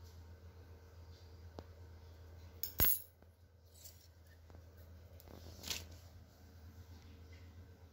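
Steel reciprocating saw blade set down on a tile floor: a sharp metallic clink about three seconds in, then a softer clatter near six seconds.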